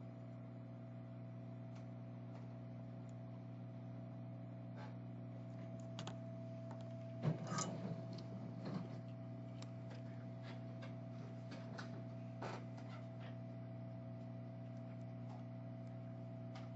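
Steady electrical hum from the repair bench, with scattered light clicks and taps of small tools and a short flurry of clatter about seven seconds in.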